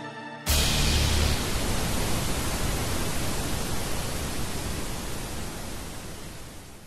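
TV-static hiss, an even white-noise rush. It cuts in suddenly about half a second in, over the song's last held notes, and is loudest at first, then slowly fades out.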